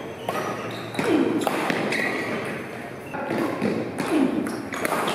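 Table tennis rally: a celluloid ball clicking repeatedly off the rackets and the tabletop, hit after hit.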